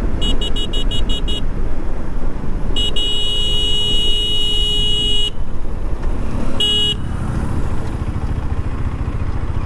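Motorcycle running at road speed with wind rush, over which a vehicle horn sounds: a quick string of about seven short toots, then one long honk of about two and a half seconds, then one short toot. Toward the end the engine note settles lower as the bike slows.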